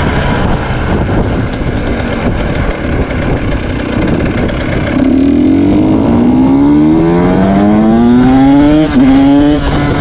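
Two-stroke single-cylinder engine of a KTM 125 SX supermoto heard onboard, its note at first buried in rushing wind noise. About halfway through the throttle opens and the engine pitch climbs steadily, broken by quick upshifts near the end.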